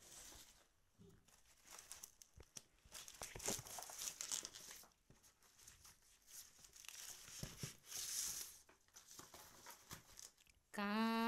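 Irregular rustling and crinkling as hands move fruit, vegetables and leafy stalks about on a sheet and a woven bamboo winnowing tray (soop). A woman begins singing a Chhath song just before the end.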